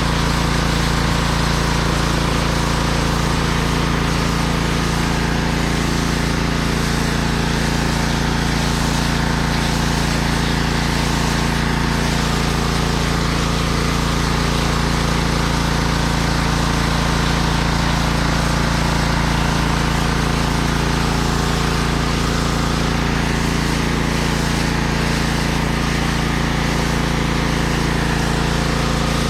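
Pressure washer running steadily, its motor giving a constant drone under the hiss of the spray jet on concrete.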